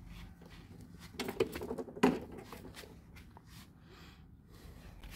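A few knocks and rattles as a petrol lawn mower is shifted and turned on paving slabs, loudest about two seconds in, followed by light scuffing and rustling.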